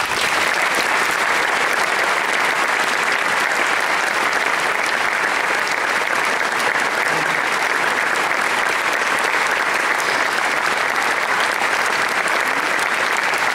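Audience applauding: dense, even clapping that starts all at once and holds at a steady level.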